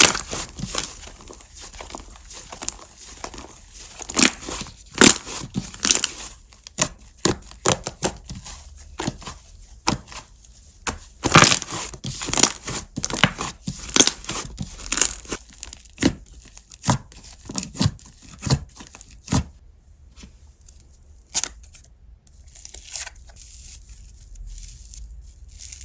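Slime being stretched, pressed and squished by hand, giving irregular crackling pops and clicks. The pops come thick and fast for most of the stretch, then thin out to a few near the end.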